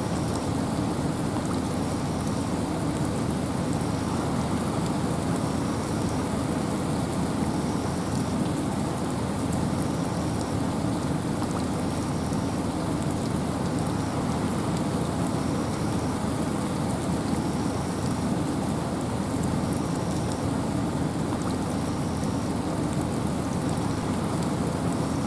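Steady rain and wind in a forest: an even, unbroken hiss with no change in level, heaviest in the low range.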